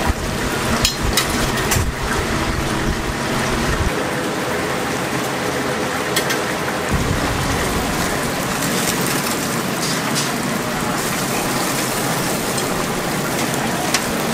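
Chicken deep-frying in a cauldron of hot oil: a steady, dense sizzle, with a few sharp clicks.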